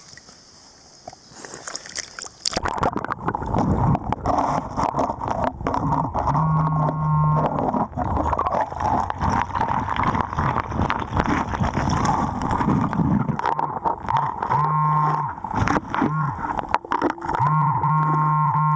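Gravel and rocks clattering and scraping with water sloshing as a river hole is probed. A Garrett Pro-Pointer's steady buzzing alert tone sounds in short stretches, about six seconds in, around fifteen seconds, and again near the end, as it finds a metal target.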